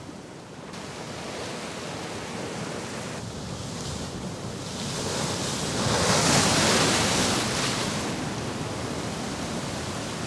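Heavy ocean swell breaking on rocks: the surf builds to a loud surge about six seconds in, then washes back and eases off.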